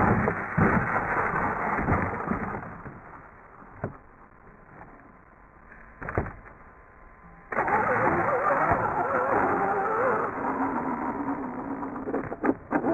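Traxxas Slash 4x4 RC truck with a Velineon VXL brushless motor, knocking and scrabbling on gravel as it rolls over. It goes quiet apart from a couple of clicks, then about seven and a half seconds in the motor cuts in loudly with a wavering whine as the truck drives off.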